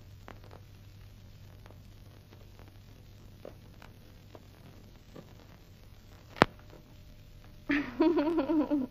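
Steady low hum and hiss of an old film soundtrack, with faint scattered ticks and one sharp click about six and a half seconds in. Near the end a louder wavering pitched sound comes in.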